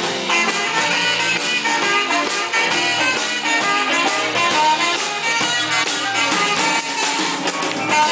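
Live band playing an instrumental passage, with no singing.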